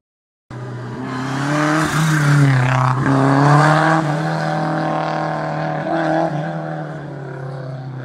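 Historic rally car accelerating hard on a stage, the engine note climbing and dropping with gear changes, then fading as the car pulls away up the road.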